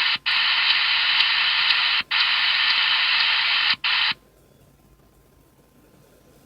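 Radio receiver hissing with loud static, broken by three short dropouts, then cutting off suddenly a little past halfway, leaving only a faint steady tone. It is unexplained noise that the listener puts down, without being sure, to atmospheric conditions.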